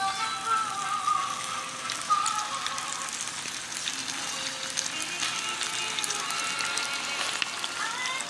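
Breaded crappie fillets frying in a skillet of hot oil, a steady crackling sizzle, under background music.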